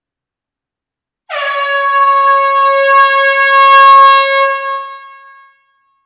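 Air horn sounding one long steady blast on a single note, starting abruptly about a second in and fading out over its last second, about four seconds in all.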